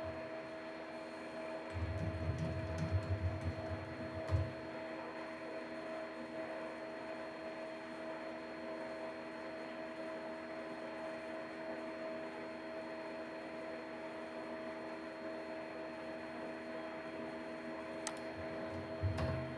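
Steady electrical hum with a faint hiss, made of several held tones. A low rumble comes in about two seconds in and lasts a couple of seconds, and a few faint clicks come near the end.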